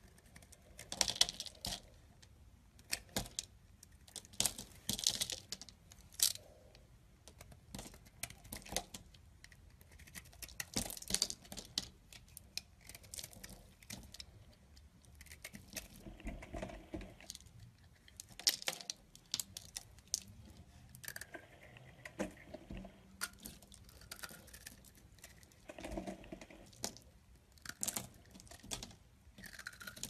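Utility knife blade cutting and shaving into a dry, crumbly bar of soap: crisp scraping and crunching in irregular bursts as curls and flakes break away.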